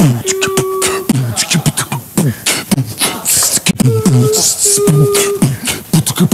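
Intro jingle of beatbox-style vocal percussion: a quick rhythm of clicks and low falling thumps under short held sung notes, the same phrase coming twice.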